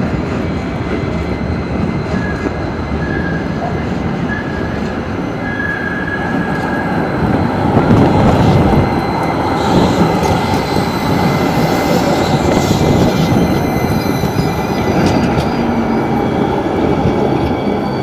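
NJ Transit Hudson-Bergen Light Rail car, a Kinki Sharyo low-floor tram, rolling past close by on curved street track: a steady rumble of wheels on rail, with a few short high wheel squeals in the first several seconds. It is loudest about eight seconds in as it passes nearest.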